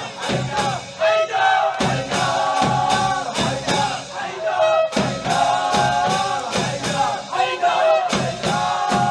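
A group of male mourners chanting a latmiya refrain in unison over a steady drumbeat of about three strikes a second.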